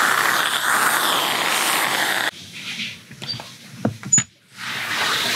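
Steady hiss of a running shower. About two seconds in it drops to a quieter stretch with a few small clicks, and the hiss comes back near the end.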